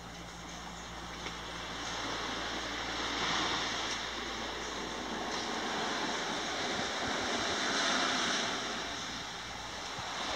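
Gentle surf washing onto a sandy beach, swelling louder twice as waves come in.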